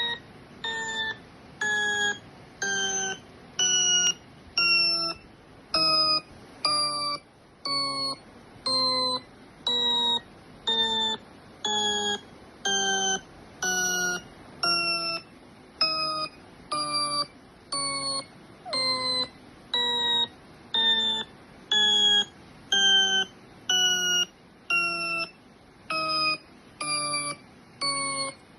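A repeating electronic beep, about one tone a second for the whole stretch. Each beep is a short, slightly falling tone with several overtones.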